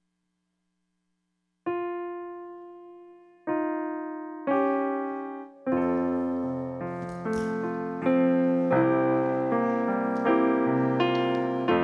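Piano music beginning after a short near-silence: three single held notes that each fade, then fuller chords played continuously from about six seconds in.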